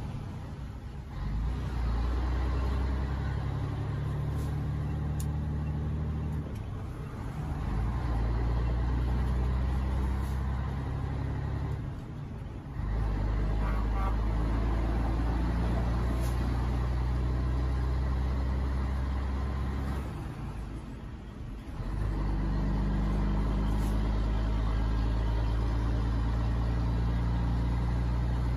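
Scania truck's diesel engine heard from inside the cab, pulling hard under load. The engine note drops away four times for a second or so as the gears are changed on the manual gear lever, then picks up again.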